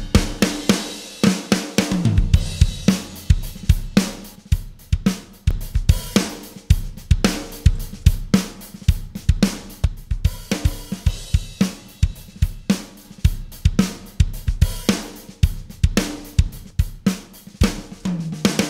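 A MIDI-programmed drum kit track playing a steady groove of kick, snare, hi-hats and cymbals, run through a Wes Audio NgBusComp analog bus compressor with its iron transformer in use.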